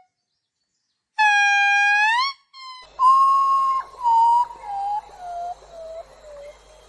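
Animal calls: one pitched call held for about a second that rises in pitch at its end, then a run of whistle-like notes that step down in pitch one after another and grow fainter.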